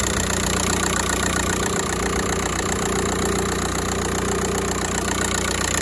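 VW 1.9-litre TDI turbo-diesel four-cylinder idling steadily, a little loud and noisy in the usual diesel way, heard close up in the open engine bay.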